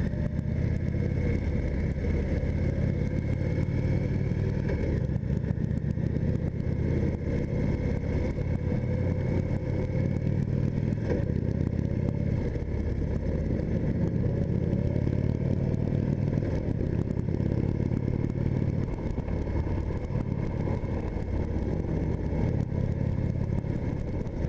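2015 Indian Chief Vintage's Thunder Stroke 111 V-twin running steadily while being ridden at road speed, heard from the rider's seat. Its note shifts a little a couple of times as the throttle changes.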